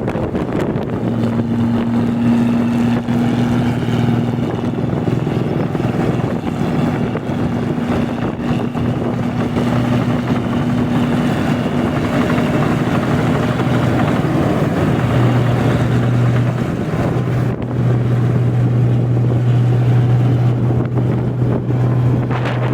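Rice combine harvester running steadily in the paddy, its engine giving a constant low hum over the noise of the working machinery, with wind buffeting the microphone.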